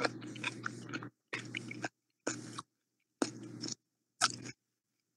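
Crackly clicks and rustling picked up close to a microphone over a low hum, in five short spurts with silent gaps between them.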